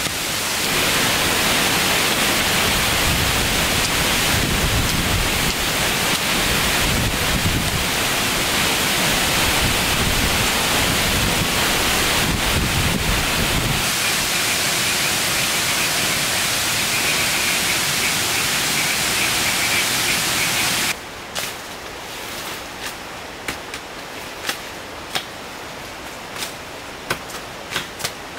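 A steady, loud rushing noise that cuts off abruptly about three-quarters of the way through. It gives way to a quieter background with scattered sharp ticks and taps.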